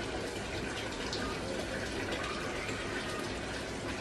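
Water running steadily from a tap into a bucket.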